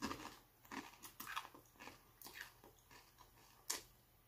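Doritos tortilla chip being bitten and chewed, a run of faint short crunches over the first three seconds and one sharper crunch near the end.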